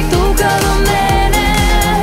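Macedonian pop song playing, a full band arrangement over a steady drum beat.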